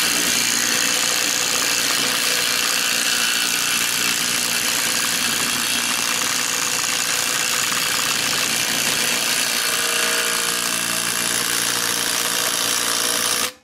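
DeWalt cordless impact driver running steadily, driving the castle nut down on a VW Beetle axle stub against the hub, then cutting off suddenly near the end.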